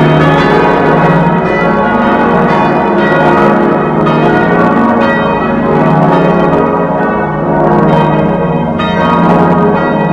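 Church bells ringing in a continuous peal: several bells struck one after another, their tones overlapping and ringing on without a break.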